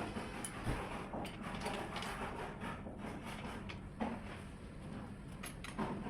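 Scattered clicks and knocks of hand-tool work over steady background noise, with a sharper knock about four seconds in.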